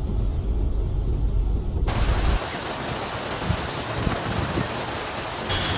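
A deep low rumble for about two seconds, then an abrupt switch to a steady, dense hiss of heavy rain.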